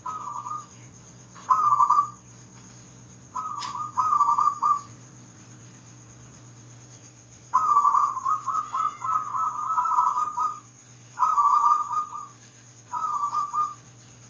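Zebra dove (perkutut) cooing in quick, fluttering trilled phrases, about six bursts of varying length, over a faint steady hum.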